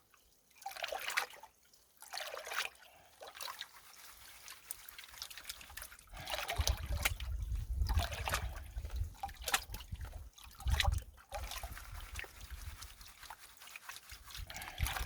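Gold pan being worked in creek water: water sloshing and trickling in and out of the pan, with sharp clicks of rocks knocking together. A low rumble comes in about six seconds in.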